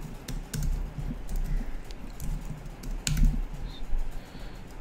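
Typing on a computer keyboard: a run of irregular keystroke clicks as words are entered into form fields.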